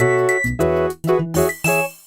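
Nokia 1202/1203 ringtone: a synthesized melody of short notes over a bass line, stopping near the end.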